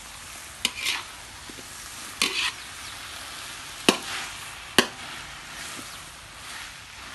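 Noodles with minced pork sizzling in a metal wok while a metal spatula stirs and tosses them, scraping and clanking against the pan. The loudest sounds are two sharp clanks of the spatula, a little under a second apart, about four seconds in.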